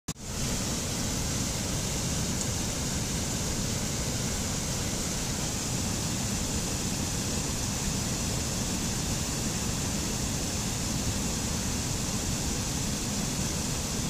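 Mountain stream rushing over rocks: a steady, even rush of water that fades in at the very start.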